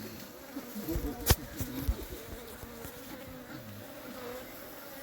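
Honeybees buzzing around an opened hive, a wavering drone that varies in pitch. A single sharp click sounds about a second in.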